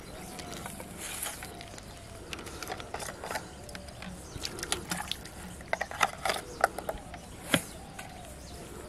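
Plastic being handled by hand: a run of clicks and crinkles, sparse at first and quick and clustered in the second half, with one sharp click near the end.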